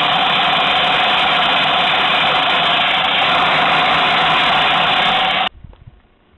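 Small electric motor of a 1960s MFZ Fuchs toy twin-tub washing machine running with a steady whine and rattle, then cutting off suddenly about five and a half seconds in. The motor is rusty, which keeps the agitator and spinner slower than they should be.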